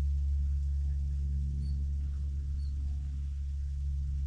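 A steady low hum of several fixed low tones, with faint short high-pitched chirps about once a second.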